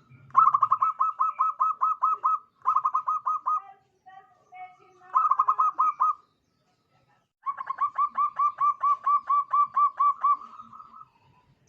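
A zebra dove (perkutut) cooing in four runs of rapid staccato notes, about five a second. The last and longest run lasts about three and a half seconds.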